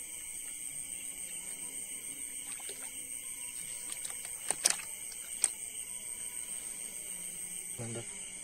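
Steady, high-pitched chirring of crickets at night, with three sharp clicks about halfway through.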